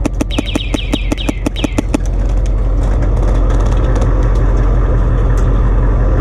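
Airsoft rifle firing a rapid burst of shots, about nine a second, for roughly two seconds, then stopping. A steady vehicle engine drone with a low hum carries on through the rest.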